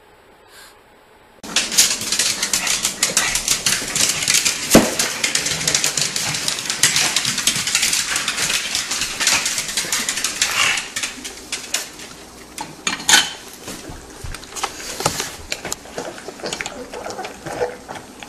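Rapid clicking and clattering against a stainless steel dog bowl, starting suddenly about a second and a half in and thinning to scattered clinks after about eleven seconds, as a pug eats from the bowl.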